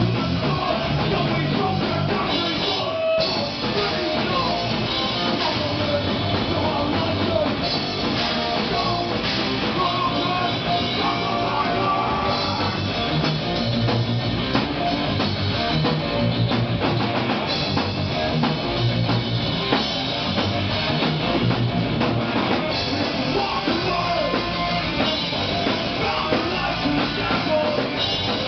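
Live rock band playing electric guitar and drum kit, with a momentary break about three seconds in.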